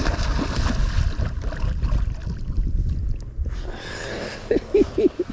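Water splashing and gurgling around a kayak while a hooked catfish is fought at the surface, over a low rumble. Near the end come a few short tones that rise and fall.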